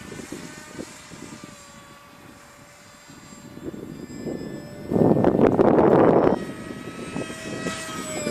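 Electric motor and 5x5 propeller of a small RC flying wing whining in flight, the pitch sliding slightly as it passes. About five seconds in, a loud rush of wind noise covers it for over a second.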